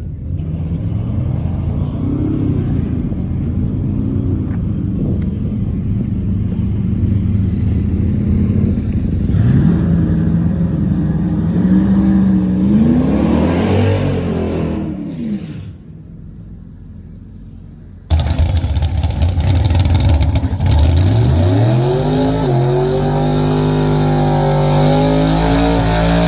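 Car engine at full throttle on a drag-racing pass, its pitch climbing and dropping back at each upshift. About 16 s in it falls to a quieter stretch, then about 18 s in a second loud acceleration starts abruptly and climbs through the gears.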